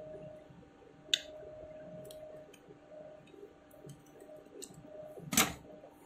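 Small plastic clicks as the battery cover is snapped onto a battery-powered door alarm: a sharp click about a second in, a few faint ticks, and a louder knock near the end.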